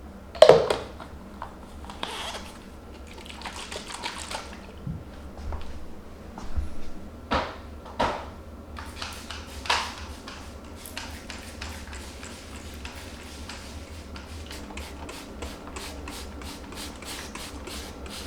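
Kitchen cleaning sounds: a sharp knock, short hisses of water or spray, and a few clicks, then quick, regular strokes at about three a second, like scrubbing or wiping.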